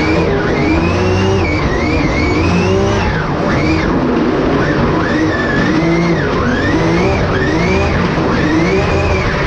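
Drift car's engine heard from inside the cabin, revving up and down about once a second as the throttle is worked through a drift, over the steady rush of the rear tyres sliding.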